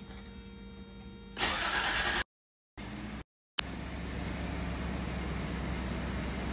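1995 Toyota 4Runner's 3.0-litre V6 cranking and starting on its first start after a new timing belt and water pump, then idling steadily. The sound cuts out twice for a moment, just as it catches.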